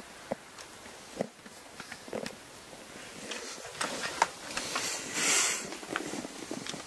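Handling noise of a camera being moved and hands touching the zori and tabletop: scattered light clicks and taps, with one louder short hiss about five seconds in.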